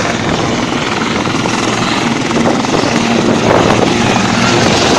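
Helicopter rotor and turbine engines running at high power as it lifts off, a dense rush of rotor noise that grows steadily louder.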